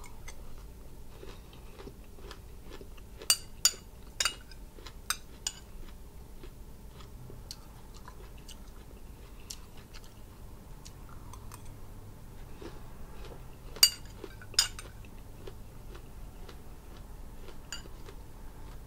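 Chewing and biting on pomegranate seeds, with a metal spoon clicking against a glass bowl: a run of sharp clicks about three to five seconds in and two more around the middle.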